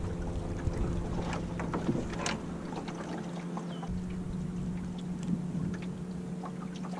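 Water lapping and splashing against the hull of a small wooden sailboat under way, with light wind on the microphone and scattered small ticks and slaps. A faint steady drone sits underneath.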